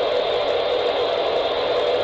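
Steady radio static: an even hiss from the weather radio receiver with no voice or tone on the signal.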